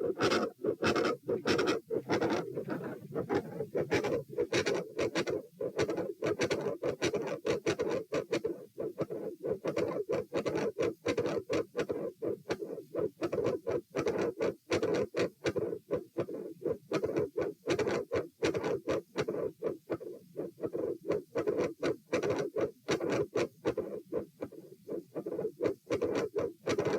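Human heart sounds heard through a stethoscope at one chest position: a regular train of lub-dub beats over a steady low hiss. The recording is labelled as showing a mid-systolic sound, a murmur at the second heart sound and a split second heart sound.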